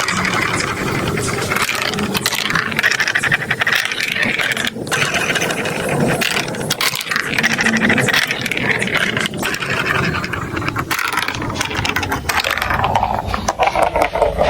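Marbles rolling and clattering without a break through a plastic marble-run track: a dense stream of small clicks over a rolling rumble.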